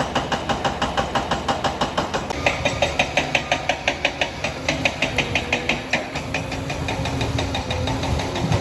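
Liebherr 746 crawler dozer's diesel engine running under work, with an even, rapid clatter of about six knocks a second. A steady whine joins about two and a half seconds in.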